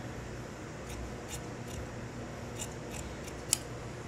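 Large tailor's shears cutting along the edge of a suit-fabric trouser panel on a cutting table: a few short snips of the blades, the sharpest about three and a half seconds in.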